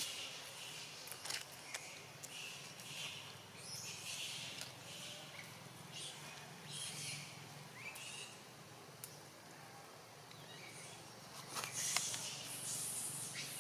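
Outdoor ambience of short high chirps every second or so, with dry leaf litter rustling and a sharp crackle about twelve seconds in.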